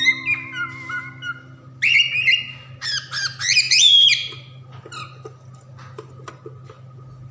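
Cockatiels calling: a run of loud, harsh squawks and gliding chirps about two to four seconds in, followed by a few short soft chirps.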